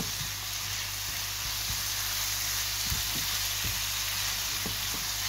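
Diced plum tomatoes and onions sizzling steadily in a hot non-stick frying pan as they are stirred with a spatula, with a few soft taps of the spatula against the pan.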